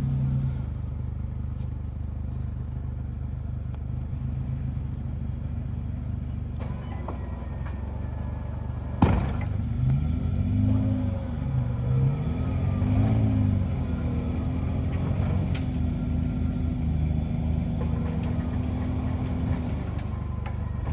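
Off-road truck's engine running steadily, then revved up and down in several short surges, with a single sharp knock just before the revving starts.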